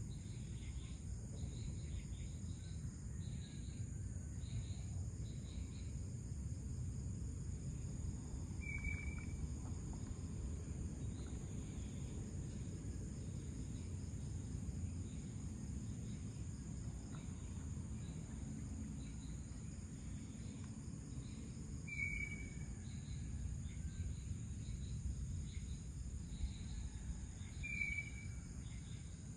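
Night insects such as crickets trilling steadily at a high pitch over a low, even rumble of background noise. Three short high chirps stand out, well spaced, the last near the end.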